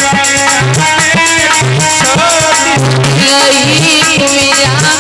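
Dehati bhajan folk music for dancing: a steady drum beat with jingling percussion under a wavering melody line.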